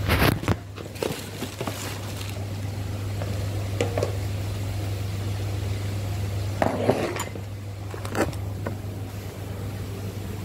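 Clatter and knocks from handling the phone and kitchen utensils, with a spoon clinking among spice packets, over a steady low hum. The loudest clatters come at the start and about seven seconds in.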